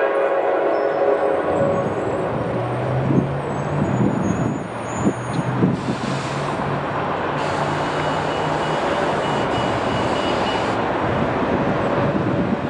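Norfolk Southern diesel locomotive rolling slowly past: its horn tails off in the first couple of seconds, then the engine runs with a low steady tone and scattered metallic clanks, with a hiss of air partway through.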